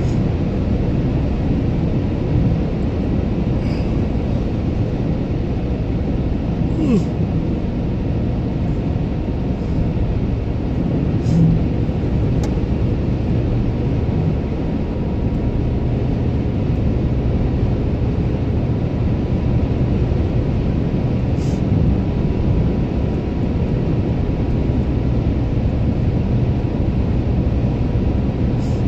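Steady road and engine noise inside a moving car's cabin, with a few faint ticks and a brief low bump about eleven seconds in.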